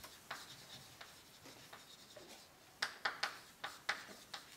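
Chalk writing on a blackboard: faint scraping strokes at first, then from about three seconds in a quick run of sharp chalk taps and strokes.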